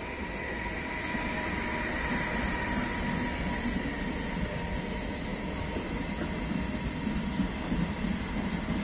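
Regional passenger train running past on the rails: a wheel-and-rail rumble that grows steadily louder, with a steady high whine over the first few seconds.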